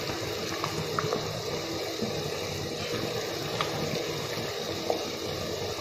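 Sugar syrup boiling hard in an open aluminium pot with rasgullas in it: steady bubbling with small pops now and then.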